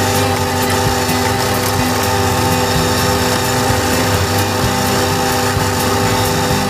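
Valtra A93 diesel tractor running steadily while driving an Agrimaster KP2600 flail mower through its PTO shaft, the rotor cutting grass in a continuous mechanical din with a few steady whining tones.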